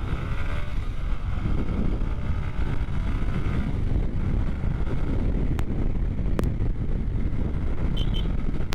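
Wind buffeting the microphone of a motorcycle rider's action camera at riding speed in heavy rain, with the motorcycle running underneath. A few sharp ticks come in the second half.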